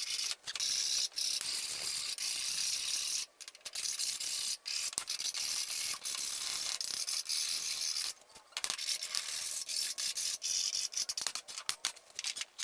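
Burrs being scraped and filed off the saw-cut end of a metal tube by hand: steady rasping strokes with short breaks, turning into shorter, quicker strokes about two-thirds of the way through. Deburring the cut end lets the tube lie flat and true.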